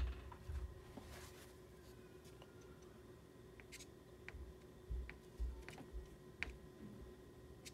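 Soft pastel stick on paper: faint scratching marks and scattered light clicks and taps, with a few low thumps about five seconds in.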